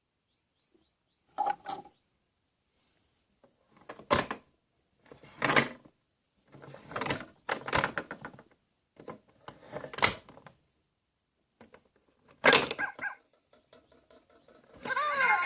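A series of short, separate knocks and clatters, one to three seconds apart. Near the end a jingle-like music intro with a ringtone-like melody starts.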